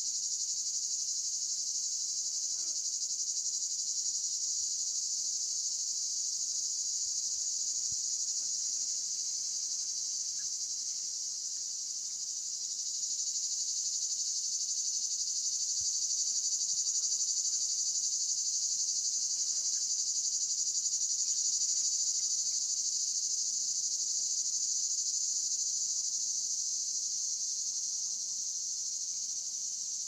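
A chorus of cicadas buzzing in one continuous, even high-pitched drone, swelling a little louder in the middle.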